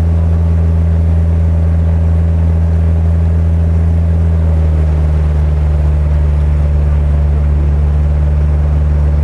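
Boat engine running loud and steady, with a low drone over the rush of churning wake water; the engine note drops slightly about four and a half seconds in.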